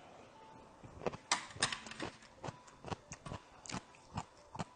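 A person chewing radish kimchi (kkakdugi) close to a clip-on microphone: crisp, irregular crunches several times a second, starting about a second in.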